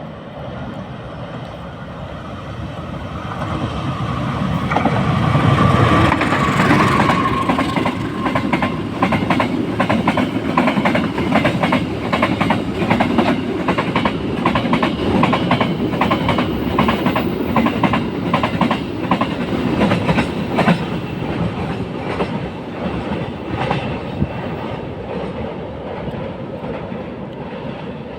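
A diesel-hauled train passing: the locomotive's engine rumble builds to its loudest about six seconds in, then the carriages run by with a steady clickety-clack of wheels over rail joints that fades near the end.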